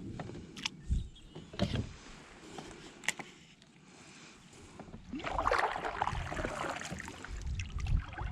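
Fishing kayak being handled on the water: a few light knocks and clicks, then a louder stretch of noisy water and rustling sound from about five seconds in.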